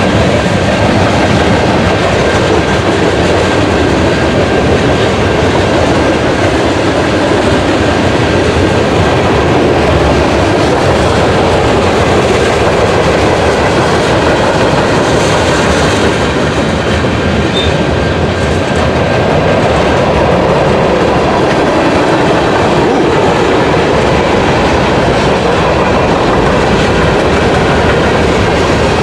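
Long CN manifest freight train passing close by, its cars rolling past in a steady, continuous rumble of steel wheels on rail.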